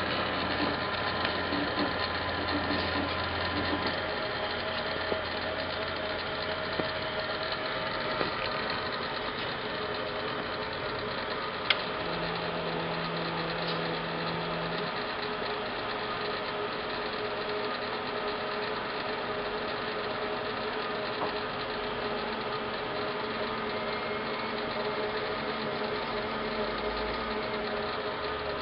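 Hardinge HLVH toolroom lathe running with a steady mechanical hum whose tones shift a few times as the controls are worked, with a single sharp click about twelve seconds in.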